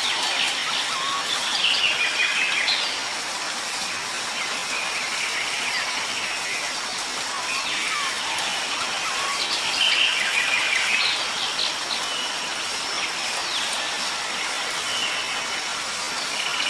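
Birds singing and chirping in short phrases over a steady background hiss of nature ambience, with busier stretches of song near the start and around the middle.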